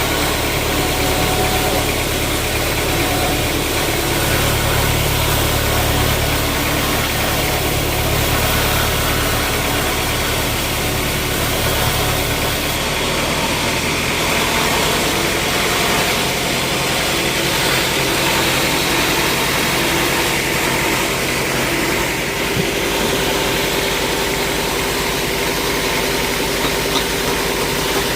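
A sawmill's engine-driven machinery running steadily, a dense mechanical din whose deep rumble drops away about halfway through.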